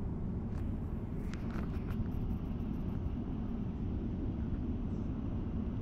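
Steady low drone of an airliner cabin, the engine and air noise that fills the plane, with a few faint light ticks in the first two seconds.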